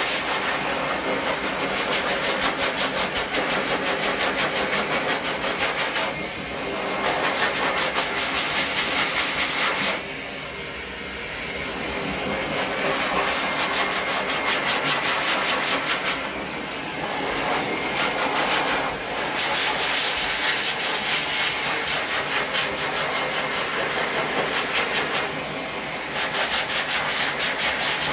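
Electric dog clippers running steadily with a hum and hiss, changing slightly as the blade works through the coat.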